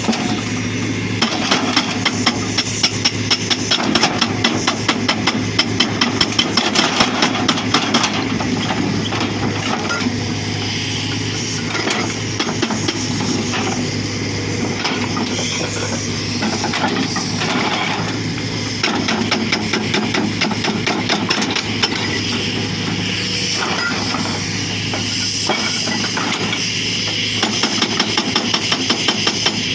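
Excavator-mounted hydraulic breaker hammering rock in rapid repeated blows. It comes in three runs with pauses between them, over the steady running of the excavator's diesel engine.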